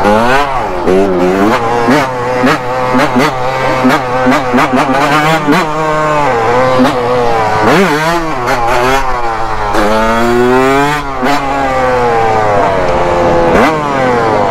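Dirt bike engine revved up and down again and again as the bike rides along, with a steadier engine drone underneath.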